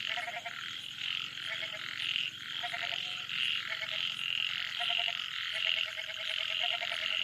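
Frogs calling at night: a steady, pulsing high-pitched chorus, over which a frog repeats short pulsed calls that sound like a goat bleating, answered back and forth by frogs at different corners of the field.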